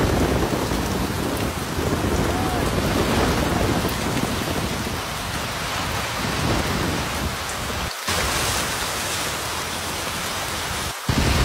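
A car ploughing through deep floodwater in heavy rain: a dense, steady rush of water spray thrown up by the tyres, along with falling rain and a heavy low rumble. The sound cuts out for a split second twice, about eight and eleven seconds in, where clips are joined.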